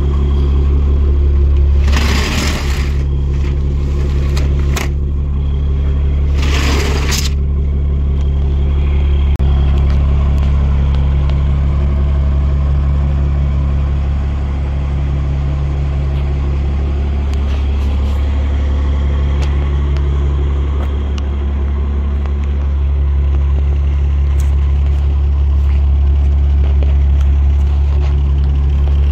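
Fire truck's Cummins diesel engine idling with a steady low hum. Two brief scraping rattles cut across it, about two and seven seconds in.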